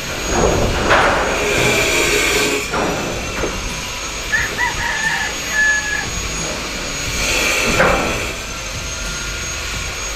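A rooster crows once about four seconds in, a short call of several stepped notes. Under it runs a steady rushing noise that swells twice, around the first and eighth seconds.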